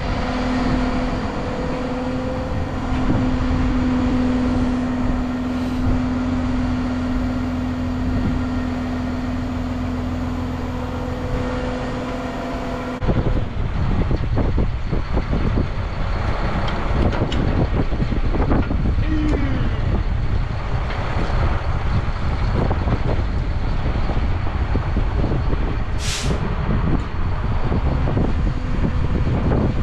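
A truck engine running at a steady speed, a held low hum over a rumble. About halfway through, gusty wind buffets the microphone over the rumble, with a brief high whine near the end.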